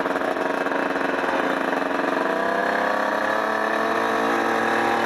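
Kawasaki KX 125 two-stroke dirt bike engine, a 1994 model fitted with an FMF Gold Series exhaust, running under way at a fairly steady engine speed.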